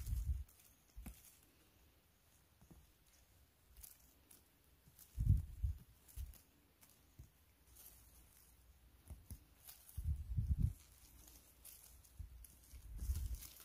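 Light rustling and crackling of someone moving over the forest floor while foraging for mushrooms, with a few dull low thumps spaced several seconds apart.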